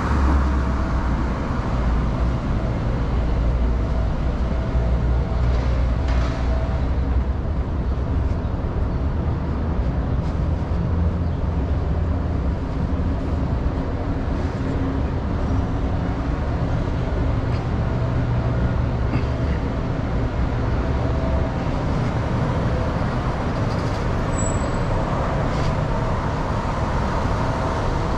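Road traffic: a steady low rumble of motor vehicles running, with no break.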